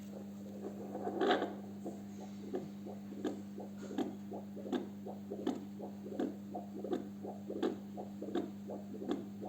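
Handheld PDF22C fetal Doppler's speaker sounding a fast heartbeat: rhythmic whooshing pulses about two and a half a second over a steady low hum, with a louder scraping burst about a second in.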